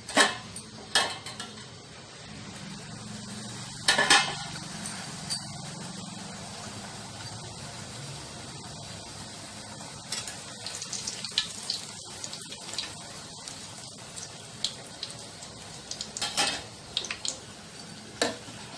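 Rolled maida-dough chonga deep-frying in hot oil in a steel kadai, with a steady sizzle. A ladle knocks and scrapes against the pan now and then, loudest about a second in, around four seconds in and near the end.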